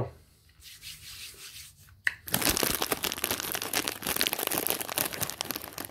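Plastic snack packaging crinkling and rustling in the hands, a dense crackle that starts about two seconds in.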